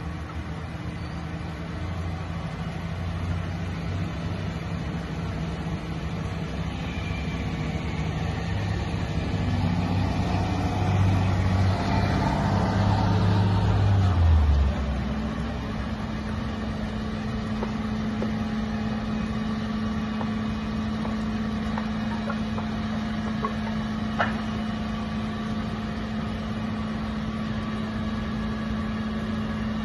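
Heavy truck engine growing louder as it passes close, its pitch dropping away about halfway through, then a steady engine drone holding on. One sharp knock near the end.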